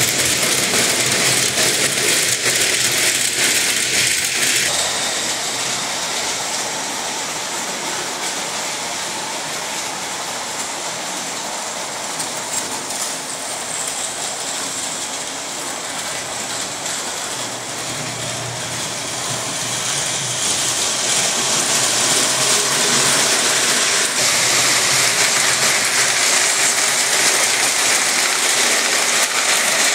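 Double-headed Boucher 2500 standard gauge electric toy steam locomotives running with their Blue Comet passenger cars on tinplate track: a steady clatter of wheels on the rails over the running of the electric motors. It is louder for the first few seconds, softer through the middle as the train runs on the far side of the layout, and louder again over the last third as it comes back close.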